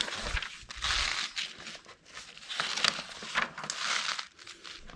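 Sheets of paper instructions rustling and crinkling as a gloved hand turns and shuffles the pages, in several irregular rustles.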